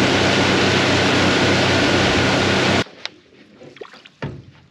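Outboard motor running a boat at speed, with rushing water and wind noise, cut off sharply about three seconds in. After that it is nearly quiet on calm water, with a few faint knocks and rustles as a mullet net is hauled in over the side of the boat.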